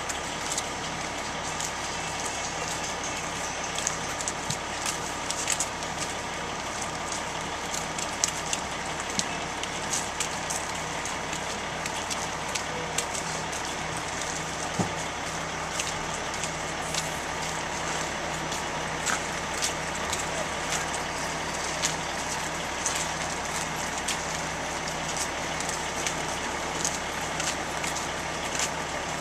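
Diesel engine of a parked motor coach idling steadily, with scattered light clicks and knocks over it.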